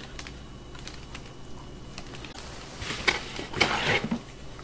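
Packaging being handled in a cardboard box: a few light plastic clicks, then a burst of rustling and crinkling about three seconds in as a part is lifted out.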